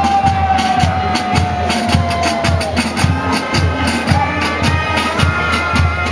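Marching band music, drums keeping a steady beat, with one long held note in the first half that sinks slightly in pitch.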